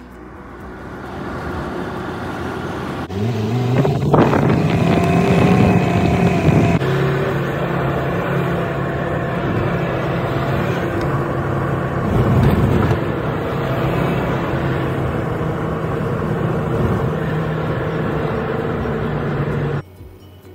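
Car engine and road noise heard from inside the cabin while driving, with the engine pitch rising as the car accelerates about three to four seconds in, then running steadily.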